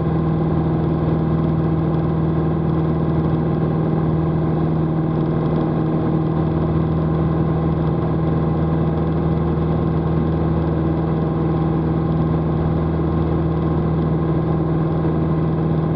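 Single-engine light aircraft's piston engine and propeller droning steadily at climb power just after takeoff, heard inside the cockpit: an unchanging low hum with wind and engine noise.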